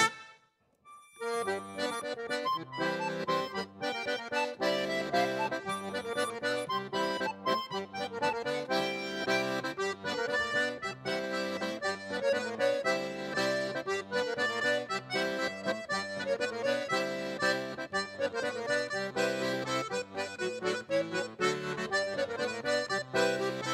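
Accordion playing a traditional Breton dance tune with a steady rhythm, coming in about a second after a brief silence.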